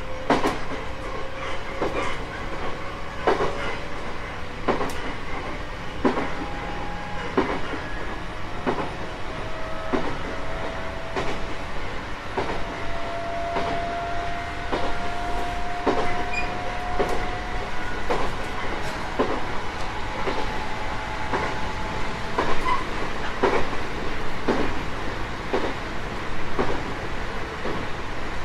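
JR East 719 series electric train running over jointed rail: a steady rumble with the clack of wheels crossing rail joints about once a second, often in close pairs. A faint whine climbs slowly in pitch through the first half.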